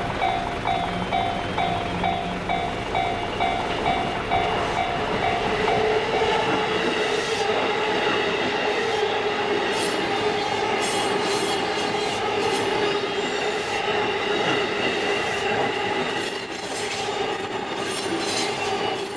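Level-crossing warning bell dinging about two to three times a second, giving way about six seconds in to a Japanese electric commuter train passing close by. The train runs with a steady wheel squeal and clacks over the rail joints.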